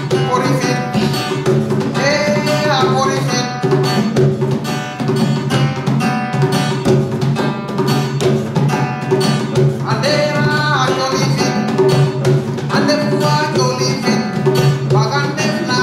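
Acoustic guitar played with two hand-beaten djembes in a steady rhythm, with a voice singing in a few short phrases over them.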